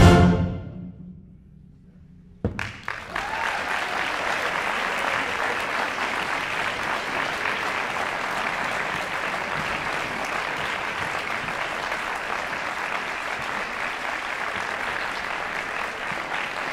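The last chord of a symphonic wind band rings out in the hall and dies away, leaving a short hush. About two and a half seconds in, audience applause breaks out suddenly and carries on steadily.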